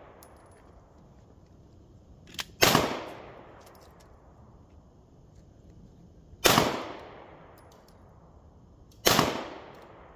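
Three pistol shots from a Glock G40 firing 9x25 Dillon rounds through a 7-inch KKM barrel, the first about two and a half seconds in, then about four seconds and two and a half seconds apart; each crack trails off in an echo lasting about a second.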